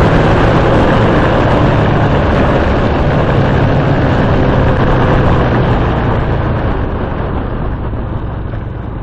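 Loud vehicle engines running, with a steady low engine note, growing quieter over the last three seconds or so.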